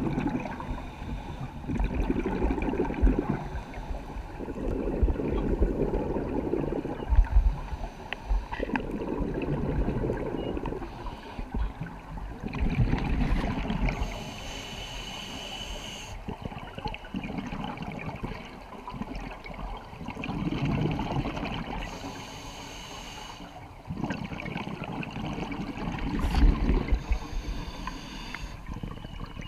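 Scuba diver breathing through a regulator underwater. Exhaled bubbles bubble and rumble in bursts every few seconds, about seven times, and the regulator hisses briefly on the inhale in between.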